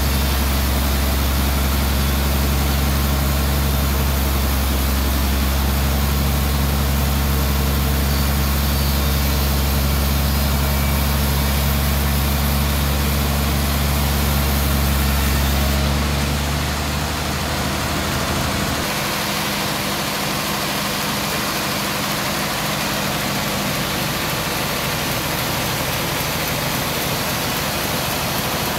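Large band sawmill running and ripping a slab from a suar log: a steady, loud mechanical drone with a deep hum. A little past halfway the deep hum drops away and the sound becomes a more even rushing noise.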